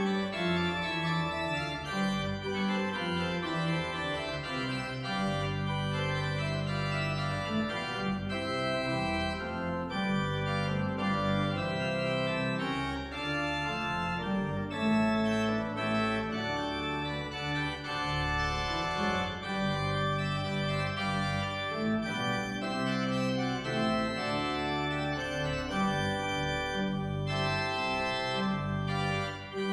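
Church organ playing slow sustained chords, the bass notes and harmony changing every second or two.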